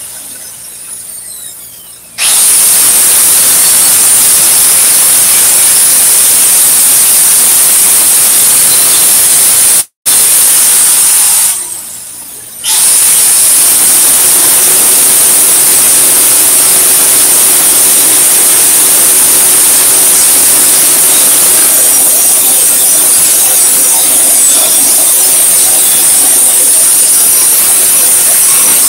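Angle grinder grinding the steel of a propane tank, a loud, steady, high-pitched grinding noise. It starts about two seconds in, cuts out for an instant near ten seconds, pauses for about a second near twelve seconds, then runs on.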